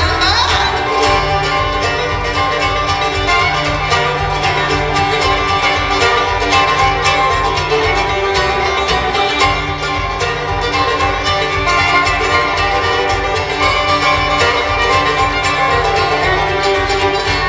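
Acoustic bluegrass string band playing an instrumental passage live: fiddle, banjo, mandolin and guitar picking over an upright bass.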